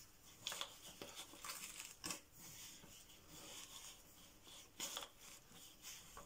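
Faint rustling and crunching of fingers pressing potting soil mixed with perlite around a succulent in a plastic pot, with a few soft scrapes, about half a second, two seconds and five seconds in.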